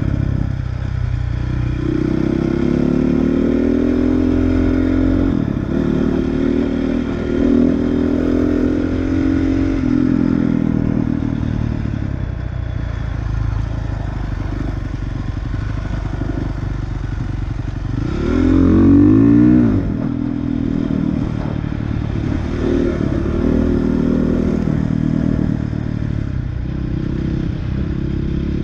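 Dirt bike engine running on the trail, its pitch rising and falling with the throttle and gear changes. A short, sharp rev about two-thirds of the way through is the loudest moment.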